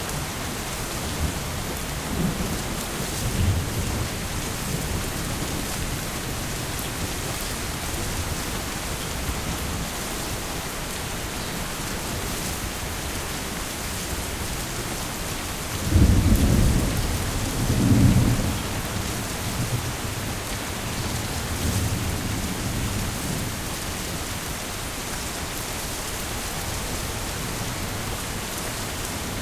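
Heavy rain falling steadily with rolls of thunder: low rumbles a few seconds in, and a louder double rumble about sixteen seconds in that dies away over a few seconds.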